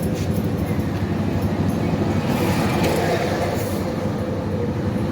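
Steady loud rumbling noise running without a break.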